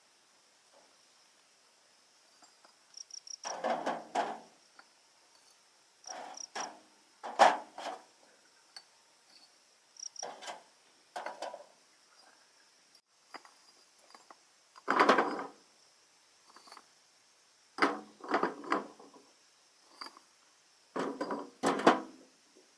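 Crickets chirping steadily in the background, broken by about eight irregular clusters of short, noisy bursts of handling or work noise, the loudest about a third of the way in.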